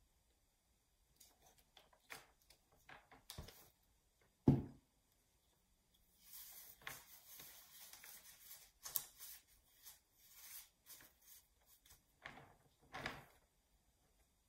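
Hands working wet plaster onto a sculpture's base plate: scattered small knocks and clicks, one louder thump about four and a half seconds in, and a stretch of rustling and scraping in the middle.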